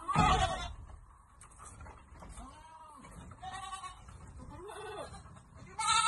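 Goats bleating: a loud bleat at the start and another near the end, with several fainter calls in between.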